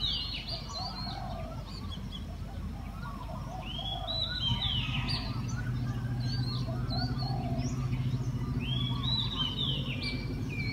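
Birds singing: a high chirping song phrase comes back three times, about every four to five seconds, with softer lower chirps in between, over a steady low hum.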